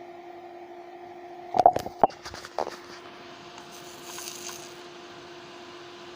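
Two salvaged PC power-supply fans running with a steady hum. A quick run of clicks and knocks comes about a second and a half in.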